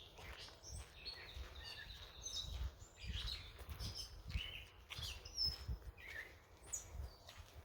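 Several small songbirds chirping and calling in short, scattered notes, over the soft, repeated thuds of footsteps on a forest trail.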